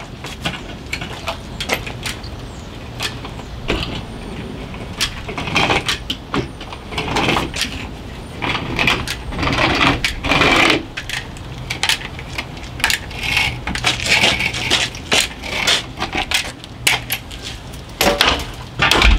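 Manual caulking gun working along a window frame: irregular metallic clicks of its trigger and plunger rod, with short rasping bursts as the bead is laid. A low steady hum runs underneath.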